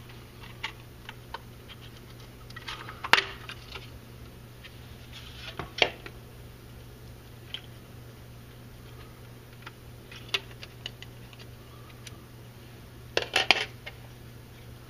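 Scattered sharp clicks and short plastic clatters as the pump controller's plastic housing and cable plugs are handled and pried at, with a quick cluster of clicks near the end, over a steady low hum.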